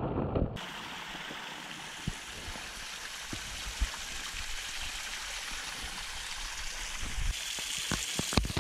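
Small waterfall pouring onto rocks into a stream pool: a steady rush and splash of falling water that cuts in sharply about half a second in, after a brief muffled, underwater-sounding start.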